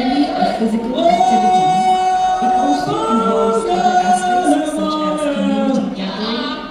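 Konyak troupe chanting together in chorus, several voices holding long notes that step up and down from phrase to phrase: the group song sung while pulling a log drum.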